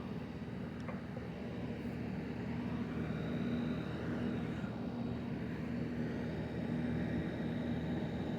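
Outdoor heat pump unit running: a steady fan and compressor hum with an even rush of air, and a faint high whine that comes in about three seconds in.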